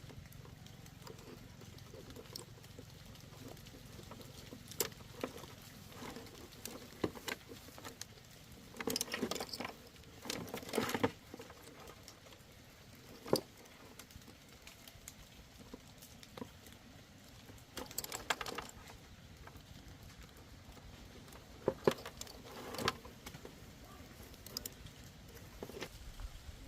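Scattered clicks, taps and short rattles of hand tools and small parts being handled during motorcycle repair work, with a busier spell of rattling near the middle.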